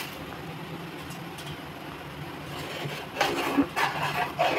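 Cooking oil heating in a pan, with a steady low hum and faint sizzle. About three seconds in, louder irregular sounds begin.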